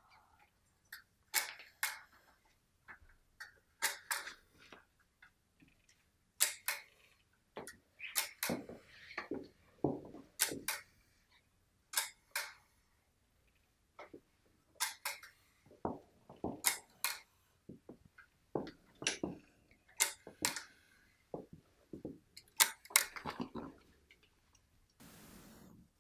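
Camera shutter clicking again and again, single and double clicks at irregular intervals, as a series of photos is taken.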